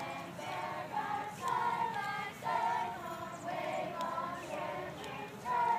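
Group of voices singing a melody together, in held notes that step up and down.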